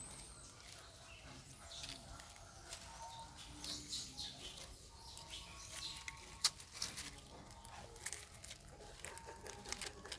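Dry leaves and twigs rustling and crackling as baby macaques move about on them: an irregular run of light, sharp clicks and snaps, the sharpest about six and a half seconds in.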